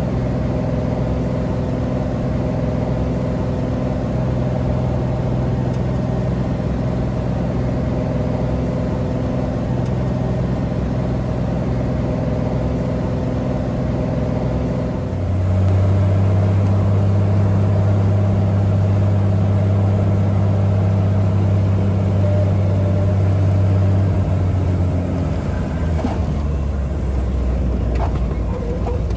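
Piston engine and propeller of a single-engine Cessna bush plane heard from inside the cabin, running steadily on the descent and approach. About halfway through the engine note drops lower and grows a little louder. A few seconds before the end it changes again as the plane rolls along the runway after landing.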